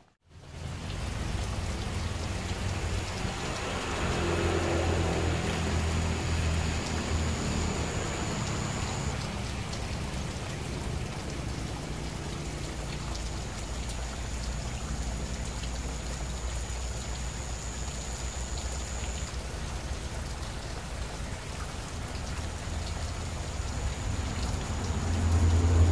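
Steady rushing of river water, with a thin high whine that comes and goes three times.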